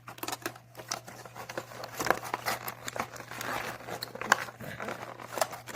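Packaging crinkling and tearing as it is handled and opened by hand, with many small sharp crackles and snaps.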